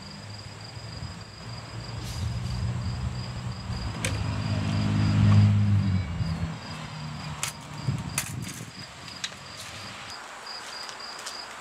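A low engine hum that swells to its loudest about halfway through and fades out near the end, over steady pulsed insect chirping, with a few sharp clicks.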